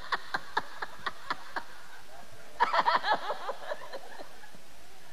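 A man laughing into a microphone in short pulses, about four a second, then a louder, higher burst of laughter about two and a half seconds in.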